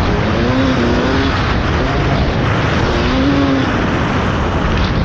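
Motocross dirt bike engine running hard, its pitch rising and falling again and again as the throttle is worked.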